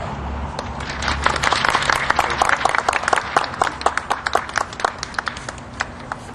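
A small crowd applauding: the clapping builds about a second in, is densest through the middle, and thins out toward the end.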